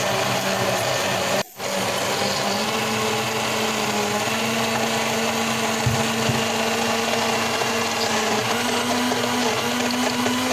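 Electric mixer-grinder running steadily, grinding idli batter with soaked beaten rice (aval) mixed in. Its hum steps up a little in pitch twice, and the sound drops out very briefly about a second and a half in.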